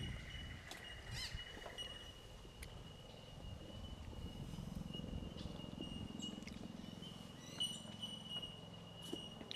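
Frogs calling in the forest: a steady high trill carries through, with a faster pulsed trill for the first couple of seconds and a few short bird-like chirps. A low rumble comes in for several seconds in the middle.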